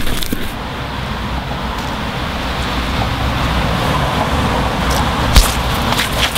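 Steady low rumble of road traffic, with a single sharp smack about five seconds in as a blow lands.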